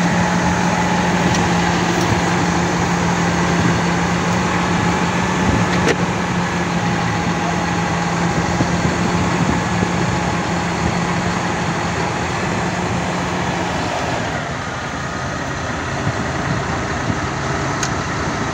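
Valtra tractor's diesel engine running steadily as it reverses a trailer. About three-quarters of the way in, the engine note drops and gets a little quieter, as if the throttle was eased.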